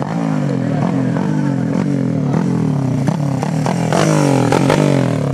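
Racing kart engines running hard on a dirt track, their pitch sliding down again and again, with a few sharp knocks about three to five seconds in.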